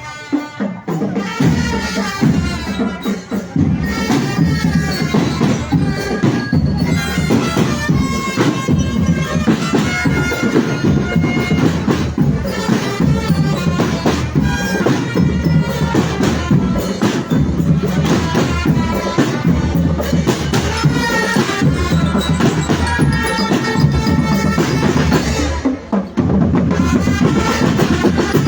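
Marching drum band playing: dense, steady drumming with a melody line carried over it, starting loud about a second in.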